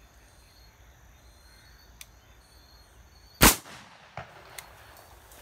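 A single shotgun shot about three and a half seconds in, fired straight up into a tree at doves, with a short echo, followed by a couple of faint clicks.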